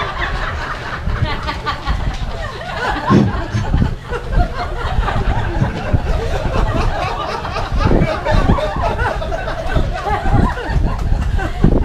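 A small crowd of guests laughing and chuckling, mixed with scattered talk.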